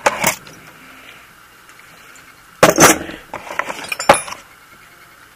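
Loose steel tools in a machinist's tool chest clinking and rattling against each other as they are handled: a short rattle at the start, a louder burst of clinks about two and a half seconds in, and a sharp single clink about a second later.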